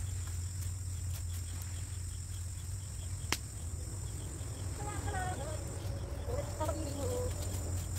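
Steady high-pitched insect drone over a low hum, with a single sharp click a little over three seconds in. Faint voices come in during the second half.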